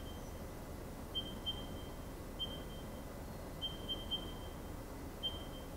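Key-press beeps from a Haas CNC lathe control panel: about seven short, high beeps at one pitch, some in quick succession, as keys are pressed. A steady low machine hum runs underneath.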